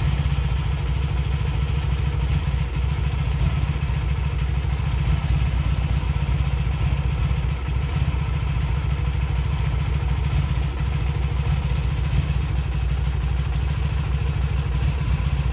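Honda Magna VF750C's liquid-cooled V4 engine idling. Its idle is one the owner calls all over the place, which he puts down to carburetors out of sync.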